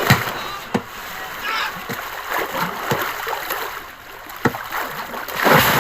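Water splashing, with several sharp slaps spread through and a louder, longer rush of splashing near the end.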